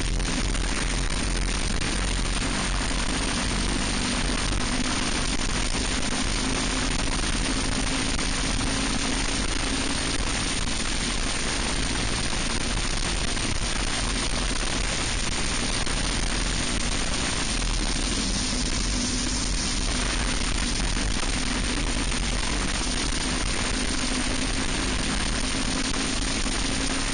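Racing kart engines running hard on track, a steady drone whose pitch rises and dips a little through the corners, under heavy wind rush on the microphone.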